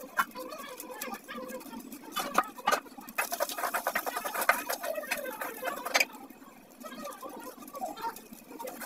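Metal kitchen utensils clinking and scraping against pans and vessels, with a busy run of rapid clicks and scrapes for about three seconds in the middle.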